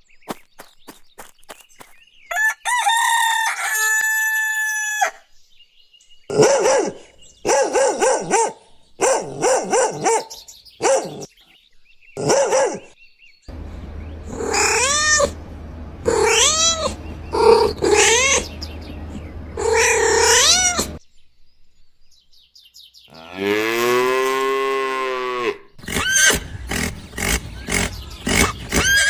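A run of different farm animal calls, one kind after another with short gaps between: held calls, a series of short repeated calls, arching calls over a low steady hum, one long call and a quick string of calls near the end.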